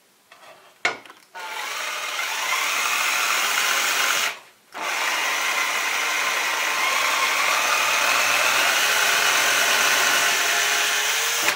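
Makita cordless drill running under load as its bit bores into a wooden board: a steady motor whine for about three seconds, a short pause, then a longer second run.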